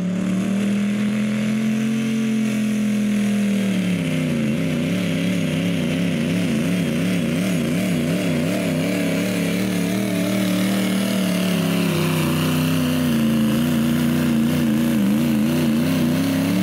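Turbocharged diesel pickup engine held at full throttle, pulling a sled. Its note drops a little about four seconds in, then wavers rapidly up and down as the revs bounce under load, with a steady hiss above it.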